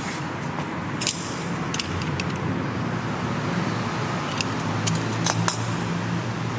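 A few light clicks and taps of a PVC skirting board being handled and pressed against the wall base, over a steady low rumbling hum.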